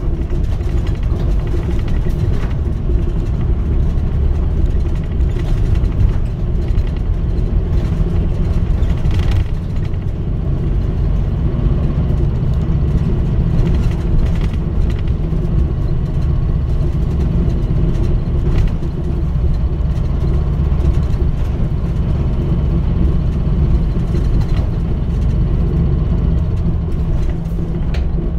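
Mitsubishi Fuso Aero Star (KL-MP35JM) city bus running on its route, heard from inside: a steady, loud diesel engine and road rumble, with a few faint rattles.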